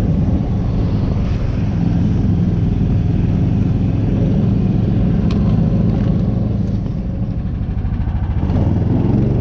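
Small engine of a motorized snow tow (motor dog) running steadily as it is ridden, easing briefly near the end and then picking up again.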